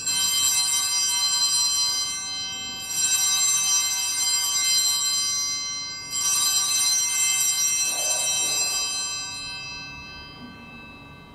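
Altar bells rung three times at the elevation of the chalice during the consecration at Mass, each ring leaving a high, shimmering tone that fades before the next. The last ring dies away gradually.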